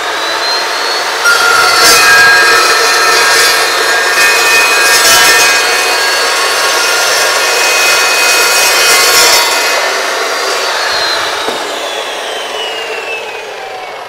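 Cold saw cutting through steel angle iron: a loud, steady high whine with harsh grinding while the blade is in the metal. About ten seconds in the whine starts falling in pitch as the blade coasts down after the cut.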